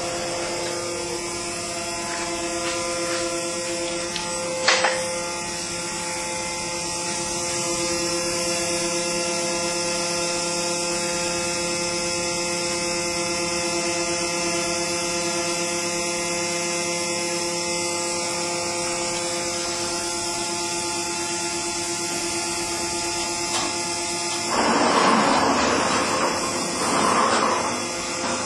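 CNC engraving machine running, with a steady hum of several held tones. There is a sharp click about five seconds in and two louder, noisier bursts near the end.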